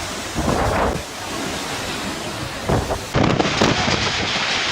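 Stormy wind buffeting the microphone with rain, a dense rushing noise that swells in gusts. The sound changes abruptly about three seconds in.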